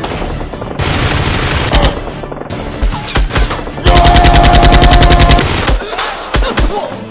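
Bursts of rapid automatic gunfire, the sound effect dubbed over blaster fire, over background music: one long burst about a second in, a few single shots, then a longer burst about four seconds in.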